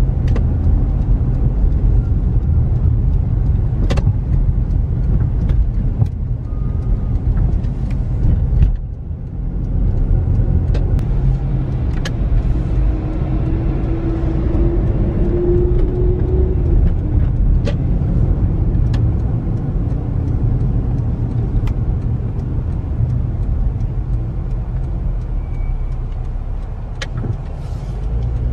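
Inside a moving car: steady low engine and road rumble while driving, with a few scattered small clicks.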